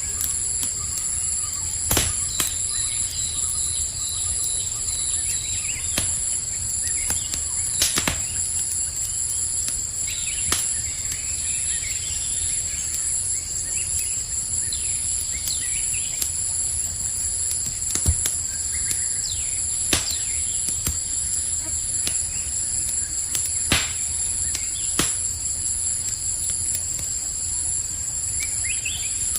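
Steady, high-pitched chorus of crickets over a campfire crackling, with sharp single pops every few seconds and a low steady rumble. A few short bird chirps come in about two seconds in and again near the end.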